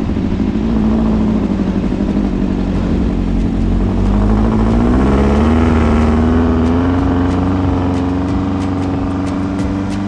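An engine running loudly and steadily, its pitch climbing slowly from about four seconds in.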